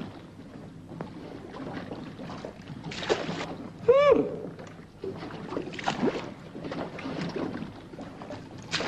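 Water sloshing and splashing, with a short pitched sound that rises and falls about four seconds in.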